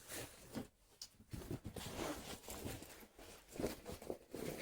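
A jacket being handled and put on, rustling irregularly with soft scuffs and knocks.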